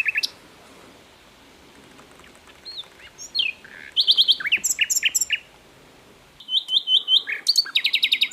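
Sikatan londo flycatcher singing: fast series of high, sharp chirping notes in bursts, a short one at the start, then two longer phrases about three and six and a half seconds in, with brief pauses between.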